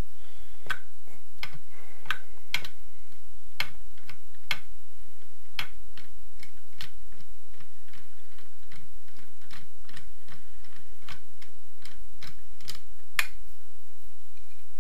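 Ratchet clicking as a loosened crankcase bolt is spun out: sharp, irregularly spaced clicks, a few a second, that stop near the end.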